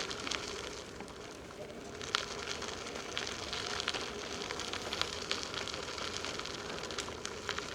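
Bicycle tyres rolling over a rough trail surface, a steady crackling with many irregular sharp ticks.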